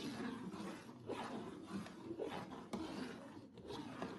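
A metal spoon stirring thick carrot-and-rice kheer in a metal pot, scraping through the pudding and against the pot in uneven strokes as cream is mixed in.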